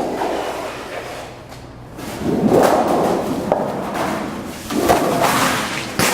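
Sheet metal being worked on a Schechtl MAB310 CNC folding brake: three swelling rushes of metallic noise with knocks between them and a sharp knock near the end.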